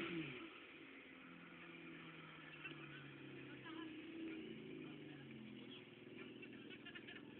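A car engine running steadily and faintly, just after a rev dies away at the very start.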